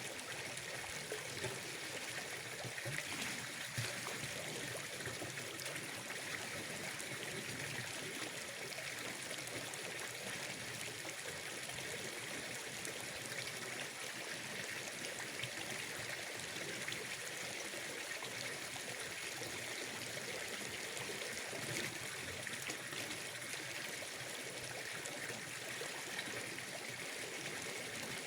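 Water trickling steadily at a fishing pond, an even running-water ambience with no sudden events.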